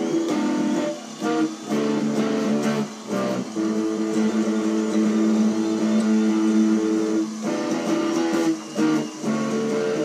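Ibanez electric guitar playing a blues, held notes and chords ringing out with several short breaks between phrases.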